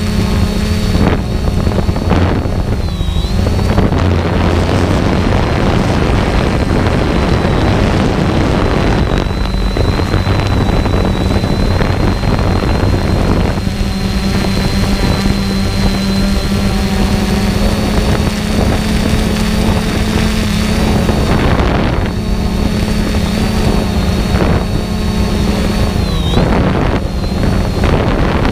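An engine running steadily, with a thin high whine above it that dips briefly twice.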